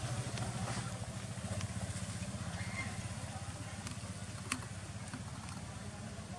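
A low, steady engine hum with a fast, even pulse, fading slowly. A few faint clicks over it, the sharpest about four and a half seconds in.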